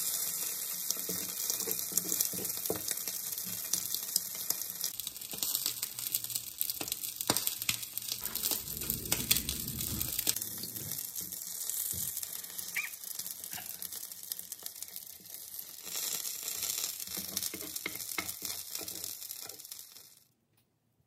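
Bacon pancake frying in a small rectangular tamagoyaki pan: a steady sizzle with scattered clicks and knocks. The sizzle cuts off suddenly near the end.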